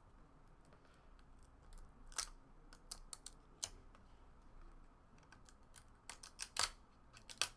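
Old trading cards being peeled apart and handled: irregular crisp clicks and snaps of card stock, the cards stuck together with age. The clicks come thicker and louder near the end.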